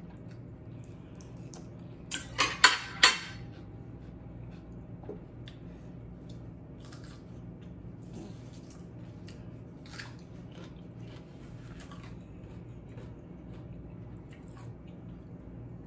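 A metal fork clinks sharply against a plate and a glass bowl several times in quick succession about two to three seconds in. After that come faint, scattered chewing and mouth sounds over a low steady hum.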